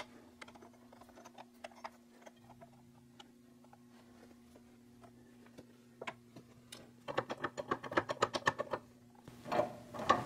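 Light metallic clicks and taps of steel bars and spacers being handled and set under a differential carrier on a shop press, with a quick run of louder rattling ticks about seven seconds in.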